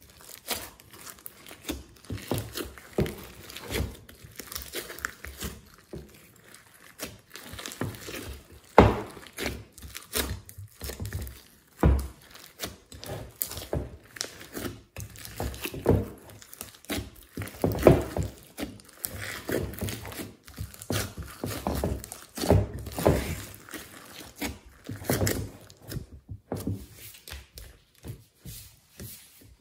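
Hands kneading and squeezing glossy slime mixed with foam beads and glitter: wet squishing in quick, irregular strokes, loudest about nine and eighteen seconds in.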